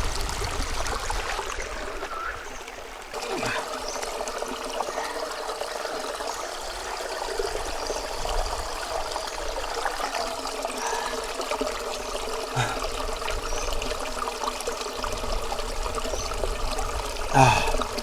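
Small spring trickling and splashing over limestone rock, with the flow running into a plastic water bottle held under it.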